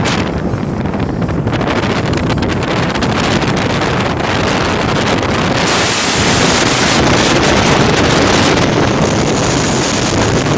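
Wind rushing and buffeting over the microphone of a camera filming from a moving car, mixed with the car's road noise; it is louder and hissier for a few seconds in the middle.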